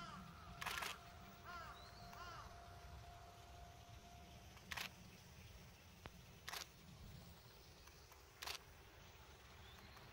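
Camera shutter clicks: short, sharp snaps every two seconds or so, one of them doubled, over faint outdoor quiet. A few short bird calls in the first couple of seconds.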